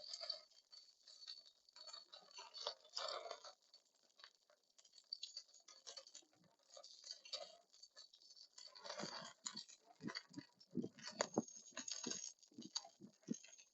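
Faint eating sounds: a person chewing, with small clicks and patters and a few sharper knocks in the second half.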